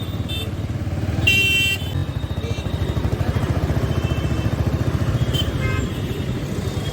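Motorcycle engine running steadily while riding, with a vehicle horn honking briefly about a second and a half in.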